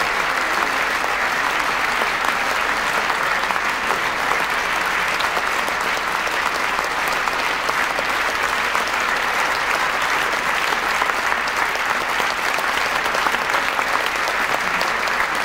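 Large audience clapping in a sustained standing ovation, a dense, even wash of applause that holds steady throughout.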